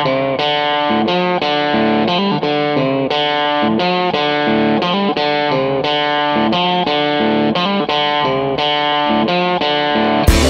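Background music led by a distorted electric guitar with effects, playing a steady run of picked notes. A fuller, louder section comes in right at the end.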